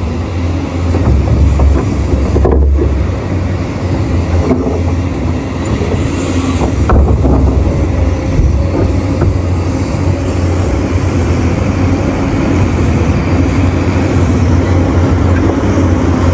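Heavy mining machinery running with a steady, loud, low diesel drone from a CAT 6015B hydraulic mining excavator working at a haul truck, with a few short knocks in the first half.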